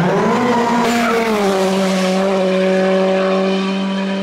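Rally car engine rising in revs and then held high and steady, with tyres skidding on tarmac as the car spins in its own tyre smoke.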